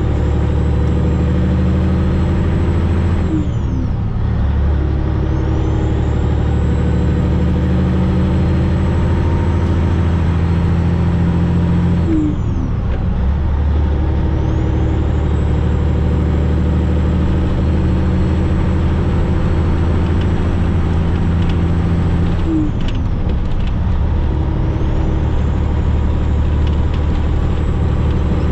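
Cab-over semi truck's diesel engine pulling hard through the gears, heard from inside the cab. The engine note and a high whine build up together, then drop off at three upshifts about nine to ten seconds apart.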